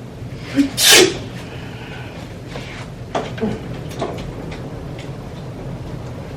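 A woman's sneeze about a second in: a short "ah" and then a loud, sharp burst of breath. A few light knocks and clicks follow a couple of seconds later.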